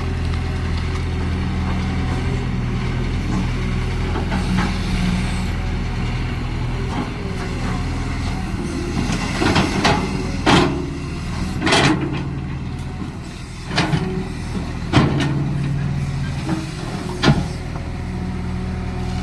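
Cat excavator's diesel engine running steadily while digging, with about six sharp, short knocks and hisses from the working arm and bucket in the second half.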